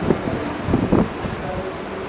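Wind buffeting the microphone: a steady rush with two short, louder gusts, one right at the start and another just under a second in.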